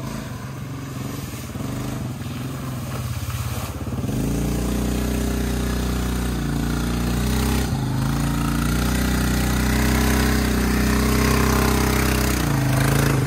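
ATV engine running as the four-wheeler ploughs through a muddy puddle, with water splashing. About four seconds in it gets much louder and holds at higher revs, dipping briefly a couple of times, then eases off just before the end.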